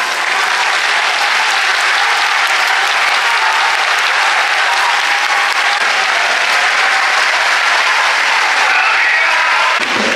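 Football crowd in a stadium applauding steadily.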